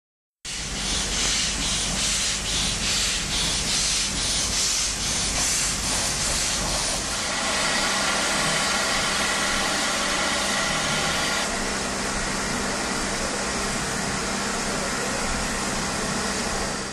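Steam locomotive hissing steam: first in even pulses about twice a second, then a steady hiss with a faint whistling tone in it from about seven seconds in, easing a little near eleven seconds.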